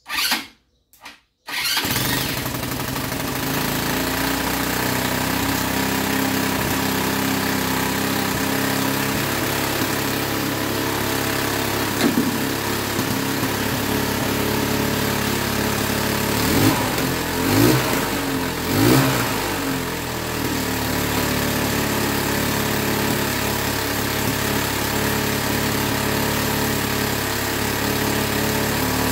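Linhai ATV engine, freshly rebuilt and fitted with a replacement CDI unit, cranked in two short bursts and catching within about two seconds, then idling steadily. About halfway through the throttle is blipped three times in quick succession before it settles back to idle.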